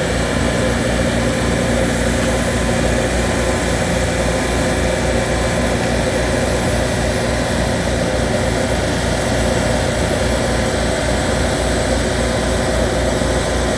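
Asphalt roller's diesel engine running steadily, with an even low throb pulsing a few times a second under a constant hum.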